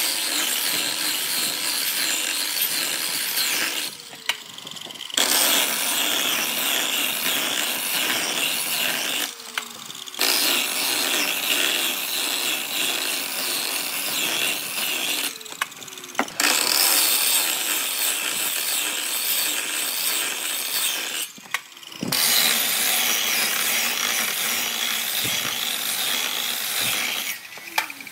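A power woodworking tool working wood in five long passes of about four to five seconds each, separated by short pauses.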